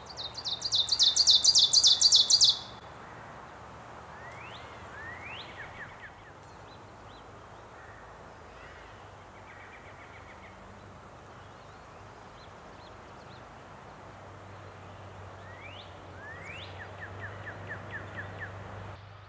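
Ovenbird singing its "teacher-teacher-teacher" song: a rapid run of repeated high two-note phrases, growing louder, for about two and a half seconds. Fainter birdsong follows later, each a quick rising note ending in a short trill.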